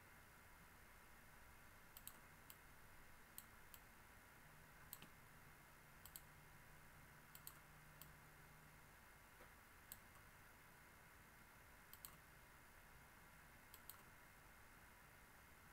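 Faint clicks of a computer mouse button, about a dozen at irregular intervals, some in quick press-and-release pairs, over a steady low hiss.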